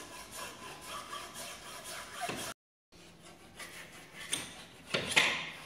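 Hacksaw cutting back and forth through a printed circuit board with a massive copper heat sink, held in a vise: repeated rasping strokes. The sound drops out completely for a moment about two and a half seconds in, and the strokes are strongest near the end.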